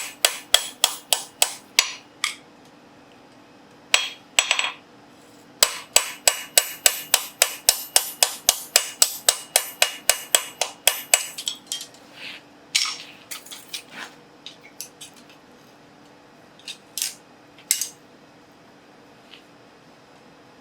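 Light hammer taps on the steel riveted joint of hand-forged double calipers, each ringing. A quick run of taps, a pause, then a longer run of about five taps a second, tailing off into a few scattered lighter clinks.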